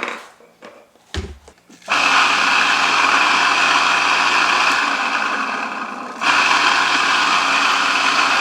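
Mazzer Mini coffee grinder switched on after a few clicks and a knock, its motor and flat burrs starting about two seconds in and running with a loud, steady whir and hum that sags slightly and picks back up about six seconds in. It is pretty loud, which the owner puts down to the bearing area, lubricated without curing it.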